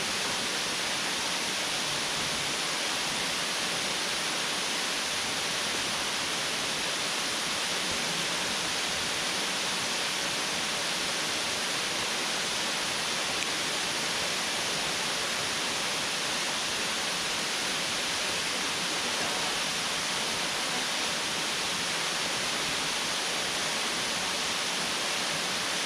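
Waterfall pouring down: a steady, even rush of falling water.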